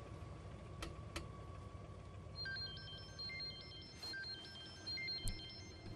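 Mobile phone ringing: a melodic electronic ringtone, a quick run of high stepping beeps, starts about two and a half seconds in and plays on. Two short clicks come about a second in, over a faint steady low background.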